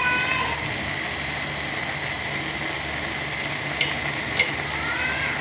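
Grated carrots cooking down in milk for gajar ka halwa in a large pot, with a steady sizzle as the milk reduces. A ladle knocks lightly against the pot twice near the end.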